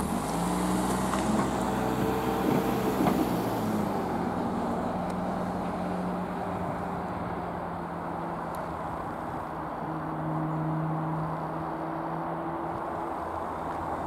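A car drives over the level crossing and past in the first few seconds, its engine note shifting as it goes. After that a car engine keeps up a steady hum, swelling slightly about ten seconds in.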